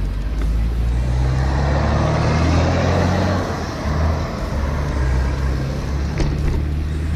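A motor vehicle going past, its noise swelling to its loudest about two and a half seconds in and then easing off, over a steady low rumble.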